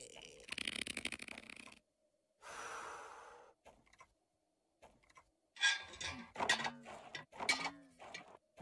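Wordless cartoon vocal sounds: breathy gasps and sighs, then short pitched grunts and mumbles near the end, with a stretch of hissing early on.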